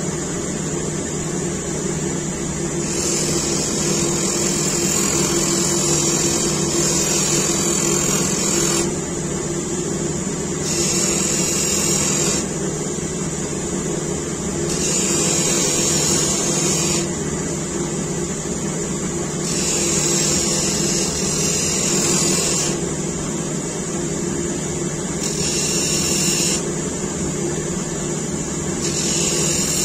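Grinding machine motor running steadily with a hum. A high hiss rises for a few seconds at a time, six times, as the blade of a hook-shaped spoon carving knife is pressed to the spinning felt wheel. This is the finishing sharpening of the edge with abrasive paste.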